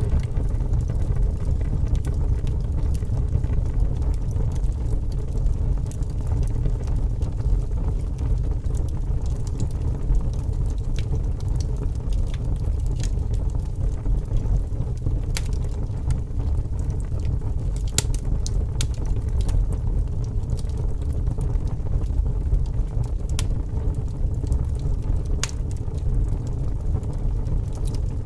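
Wood fire burning in a fireplace: a steady low roar with scattered sharp crackles and pops.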